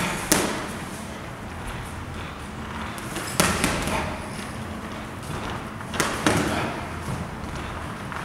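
Boxing gloves landing in sparring: three quick pairs of punches, each a sharp smack followed by a second one, about three seconds apart, with a short echo after each.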